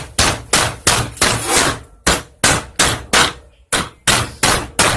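Hammer rapidly striking a steel nail to drive a worn agitator bushing out of a washing machine agitator, sharp metallic blows about three or four a second with two brief pauses. The bushing is stuck tight.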